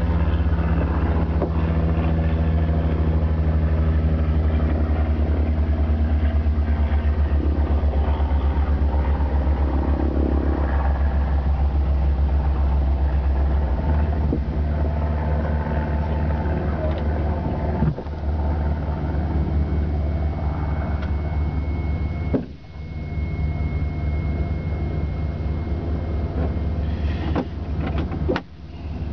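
Aircraft engine drone heard from inside the cockpit: a loud, steady, low hum that shifts in tone about halfway through. It drops out briefly twice near the end.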